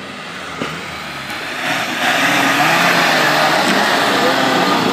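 Suzuki Samurai 4x4 engine revving hard under load as it climbs a steep dirt mound. It gets much louder about two seconds in, with tyres churning the loose dirt.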